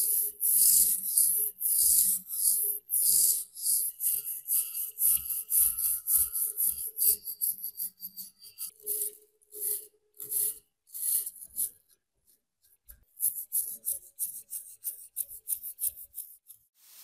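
Stiff-bristled hand brush scrubbing back and forth over a rusted steel TT-30 pistol frame to scour off rust, fast scratchy strokes about three a second. The strokes stop for about a second past the middle, then resume more lightly.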